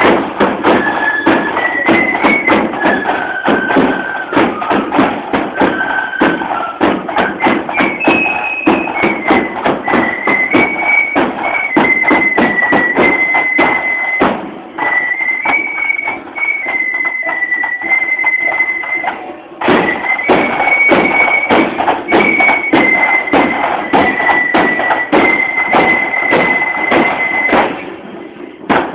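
Marching flute band playing a tune: flutes carrying a high melody in unison over a steady bass drum beat. The tune stops shortly before the end.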